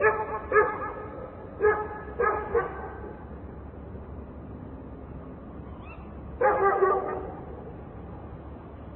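A dog barking in short single barks, five in the first three seconds, then a quick cluster of barks about six and a half seconds in, over a steady low hum of distant traffic.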